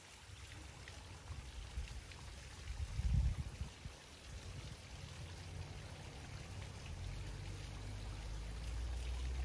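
Water trickling and running into a garden pond, a steady hiss of flowing water, with a brief low rumble about three seconds in.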